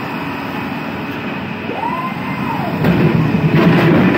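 Electric pallet jack driving out of a truck trailer. Its motor whine rises and falls once about halfway through. From about three seconds in, its wheels rumble and rattle more loudly across the steel dock plate.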